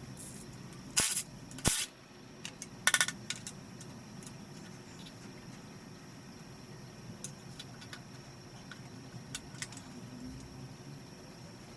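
Metal clanking: two sharp clanks about a second in and just after, then a short rattling clatter around three seconds, and scattered light clinks after that. These are tools and engine parts being handled while the pistons are pulled from a Nissan RB25DET Neo engine block.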